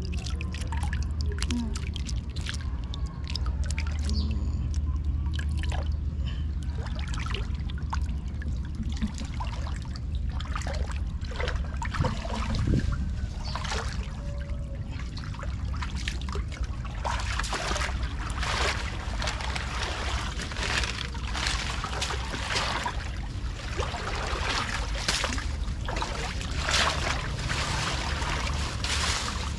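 Water trickling and splashing over a steady low rumble. The splashes become busier and louder about halfway through.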